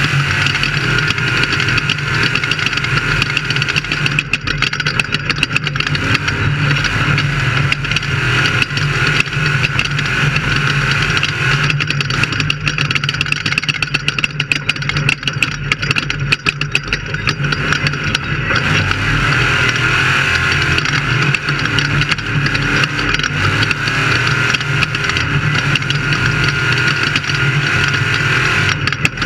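Off-road race car's engine running hard without a break, with many small knocks and rattles.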